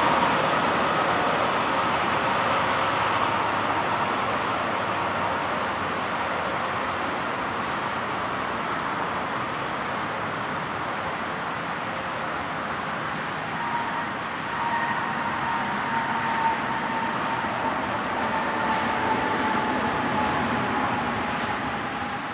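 Jet engines of an Airbus A319 (CFM56 turbofans) heard as the airliner passes low on final approach and then lands and rolls out down the runway. A steady rushing engine noise with a whine fades slowly as it moves away, then rises again with a clearer whine a little past halfway before tailing off.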